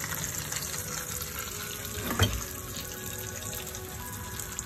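Hot oil sizzling steadily around pan-fried fish on a flat tawa, with a single knock about two seconds in.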